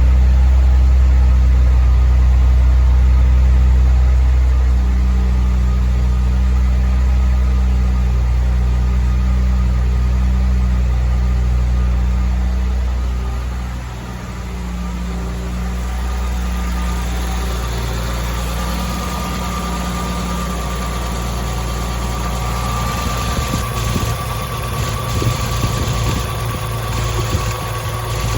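1985 Toyota Celica Supra's straight-six engine idling after a cold start. About halfway through, the idle note drops and settles quieter, and in the last few seconds light irregular ticking shows over it.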